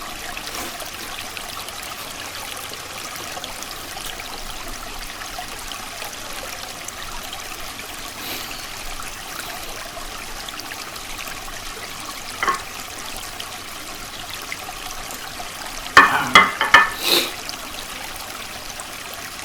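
Creek water flowing and trickling steadily. About twelve seconds in there is one brief sharp click, and about sixteen seconds in a quick run of about four loud, sharp clicks close by, louder than the stream.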